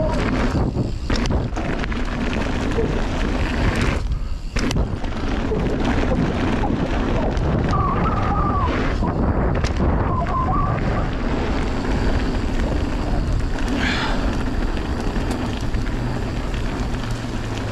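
Wind buffeting the microphone and trail noise from a mountain bike being ridden. A few brief squeaks come through about halfway in.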